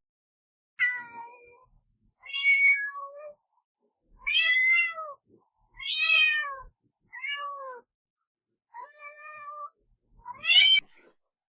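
Cat meowing seven times, about a second and a half apart; most of the meows rise and then fall in pitch.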